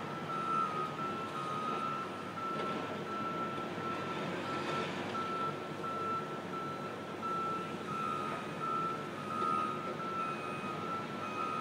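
Backup alarm on construction machinery beeping steadily at one pitch, over the low rumble of diesel engines.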